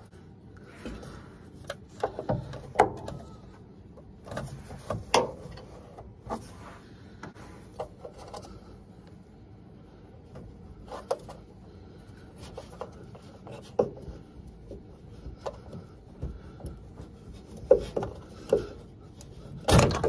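Old suspension damper being worked loose and pulled out of a Hoover Vision HD washing machine: irregular clicks, knocks and scraping of plastic parts, with the loudest knocks near the end.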